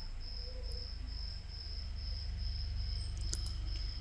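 A high-pitched chirp pulsing evenly about twice a second, over a low steady hum. A few sharp clicks come about three seconds in.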